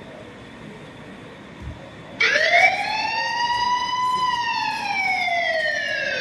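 A single siren wail that starts suddenly about two seconds in, rises in pitch for about two seconds, then falls slowly through the rest.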